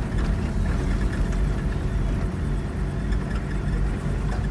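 A vehicle driving along a dirt farm track, heard from inside the cabin: steady engine and tyre noise with a deep rumble.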